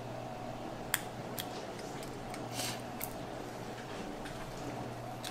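Screwdriver driving a mounting-bracket screw into a metal CPU cooler base: a sharp metallic click about a second in, a few faint ticks, a short scrape, then another click. A steady low hum runs underneath.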